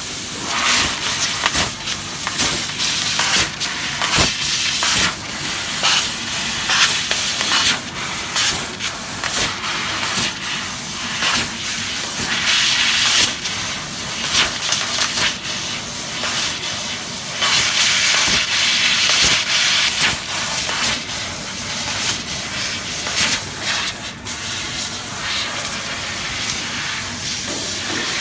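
500 W fiber laser cutting machine cutting 2 mm sheet metal: a continuous hiss from the assist-gas jet at the cutting nozzle. The hiss swells and dips every second or two as the head works through the cuts, with a few short clicks.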